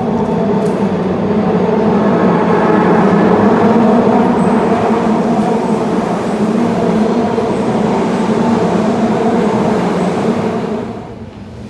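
Osaka Metro Midosuji line subway train running through the station platform: a loud, steady rumble with a humming drone, which falls away sharply near the end.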